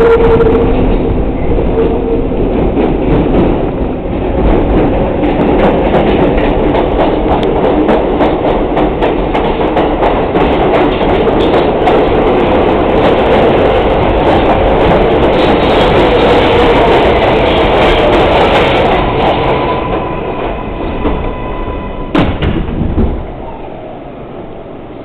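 An R142A subway train running loudly through the City Hall loop, its wheels and rails clattering with scattered sharp clicks. About twenty seconds in it slows, two sharp knocks follow, and the noise drops off as the train comes to a stop.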